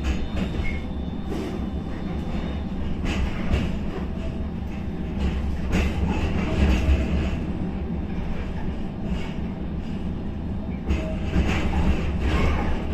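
Inside a tram running on its line: a steady low rumble from the running gear, with irregular knocks and clatter from the wheels on the rails.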